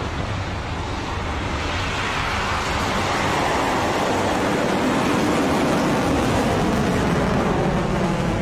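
Rocket Lab Electron rocket lifting off, its nine first-stage Rutherford engines making a steady rushing noise that grows louder over the first three seconds and then holds.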